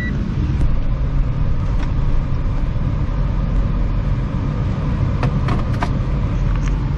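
A 1996 wagon's engine and road noise heard from inside the cabin while driving slowly, with the air-conditioning blower running full blast: a steady low rumble under an even hiss.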